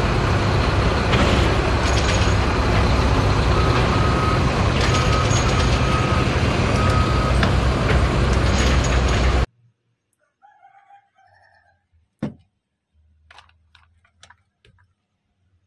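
Steady loud running noise of an XCMG truck crane working in a yard, with a few short high beeps repeating in the middle. It cuts off abruptly about nine and a half seconds in, leaving faint clicks and rustles of plastic toy vehicles being handled in a basket.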